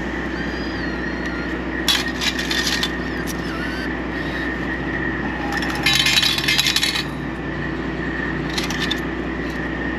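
Coins from a car-wash bill changer clattering into its steel coin cup in short bursts, about two seconds in and again about six seconds in, the second the loudest, then a brief clink near the end as a hand takes the coins out. A steady hum runs underneath.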